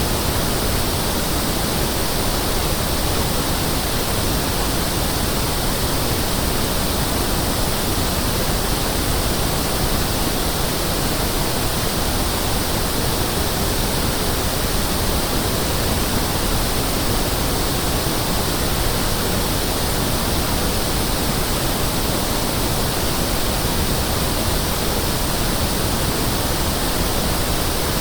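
Pink noise (1/f) test signal: a steady, unchanging hiss that covers every pitch from deep to high, with equal level in each octave. It is used for testing loudspeakers and room acoustics.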